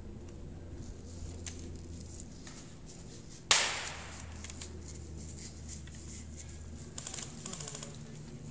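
A single sharp crack, the loudest sound, about halfway through, dying away over half a second; near the end a quick run of light ticks.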